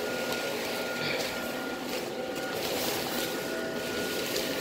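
Gemmy airblown inflatable's YF80 blower fan running steadily as the nylon figure fills with air: an even rush of air with a thin, steady whine over it. The owner finds it an unusual sound for a YF80 blower.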